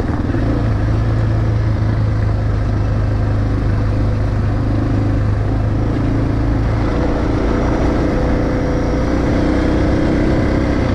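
Suzuki DR650's single-cylinder four-stroke engine running steadily as the motorcycle rides along a gravel road, with tyre and wind noise. The engine note changes about seven seconds in, taking on a slightly rising higher tone.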